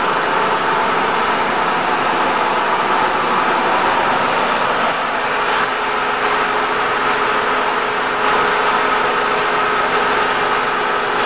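Motor-driven rotary oil extraction machine (chekku) running steadily: a constant mechanical whirr with a few steady tones and no pauses.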